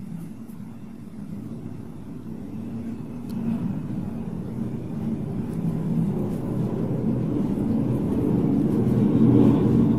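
Low engine rumble building steadily louder, like a motor vehicle or aircraft approaching.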